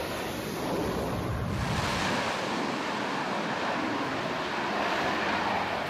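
Steady rushing wind noise buffeting the microphone out on the flight deck, with a change in its tone about a second and a half in.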